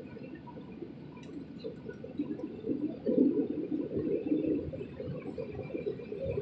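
Low cabin rumble of a Boeing 737-900ER taxiing on the ground, with engine and airframe noise that swells and grows rougher about three seconds in.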